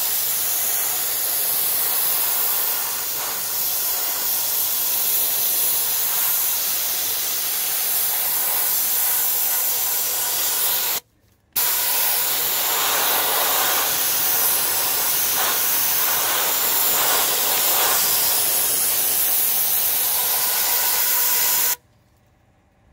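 Gravity-fed sandblaster gun blowing bicarbonate soda with compressed air onto a motorcycle's cast aluminium frame: a loud, steady hiss. It cuts out for about half a second midway, then resumes and stops shortly before the end.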